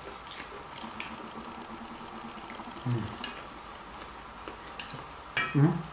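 Eating at a table: forks and knives lightly clicking on plates, with wet chewing sounds. A short hum-like voice sound about three seconds in and a louder one near the end.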